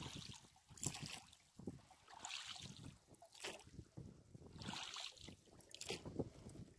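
Quiet swishes and drips of water as a wet gill net is pulled hand over hand out of the lake into a small boat, about five short splashy rushes, with faint knocks of the net and floats against the hull.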